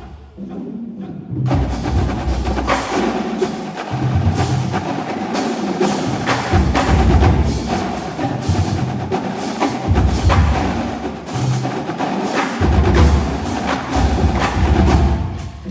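Marching drumline playing together in a fast, dense stream of stick strokes, with heavy bass-drum passages coming in again and again underneath. The playing is briefly quieter at the start and comes back in full about a second and a half in.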